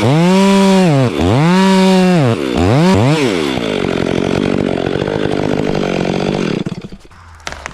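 Stihl chainsaw making a felling cut through a black oak trunk: the engine revs up to full speed and drops back three times, then runs lower and rougher, bogged down in the wood, and cuts off about seven seconds in. A few sharp cracks follow near the end.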